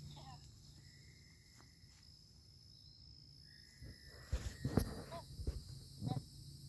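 Night chorus of crickets and other insects: several steady, high-pitched trills that run together. About four seconds in there is a cluster of thumps and rustles, the loudest sound, and a few short chirps sound here and there.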